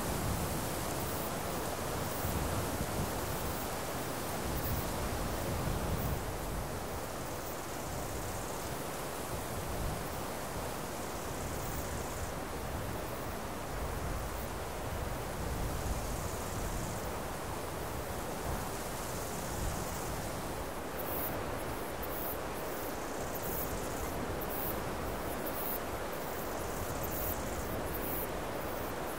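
A steady rushing noise of outdoor ambience, with a faint high hiss that swells about every three to four seconds and faint high ticking in the last third.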